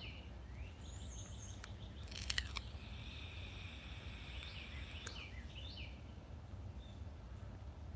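Small birds chirping in short falling calls over a low, steady background rumble, with a few faint clicks about two seconds in and a faint hiss midway.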